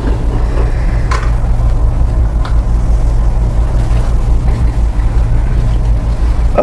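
A machine's steady low drone, with two faint clicks about one and two and a half seconds in.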